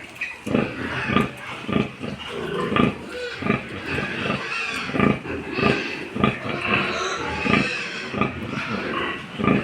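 Pigs grunting: a run of short grunts about twice a second, several animals overlapping.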